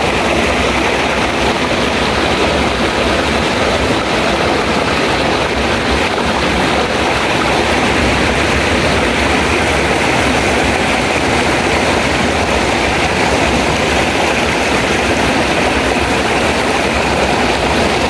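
Shallow mountain stream rushing over and between boulders close by, a steady, even rush of water.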